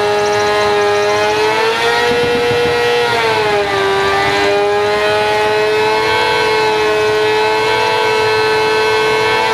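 Suzuki GSX-R 750's inline-four engine held at high revs to spin the rear tyre in a burnout: a loud, steady high-pitched wail that dips in pitch briefly about three and a half seconds in, then climbs back and holds.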